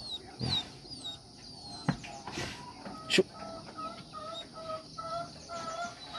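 Chickens calling: high, falling peeps in the first couple of seconds, then a run of short, evenly repeated clucks through the second half, with a sharp knock about three seconds in.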